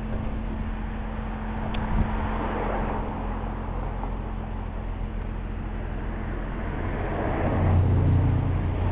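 Jeep Wrangler TJ engine idling with a steady low hum, growing louder near the end.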